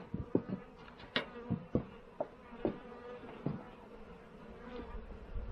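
Honey bees buzzing around an opened hive during an inspection: a steady hum, with many short, sharp sounds coming several times a second.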